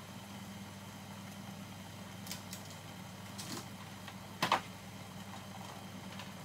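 Vegetables cooking in a covered frying pan on a gas burner: a low steady hum with a few faint scattered clicks and pops, the loudest about four and a half seconds in.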